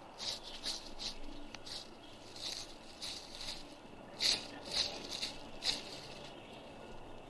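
Dry leaf litter crunching underfoot in a dozen or so short, irregular steps, the loudest about four to six seconds in.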